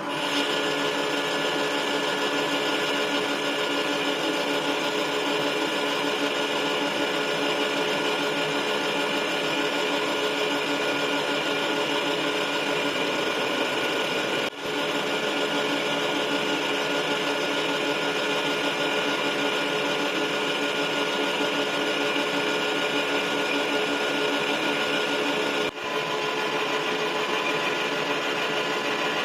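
Metal lathe running steadily with an even machine whine and hum, broken twice by a brief drop in sound, about 15 and 26 seconds in.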